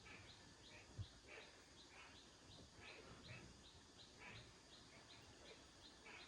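Faint, steady bird chirping, short calls repeating about twice a second, with a soft thump about a second in.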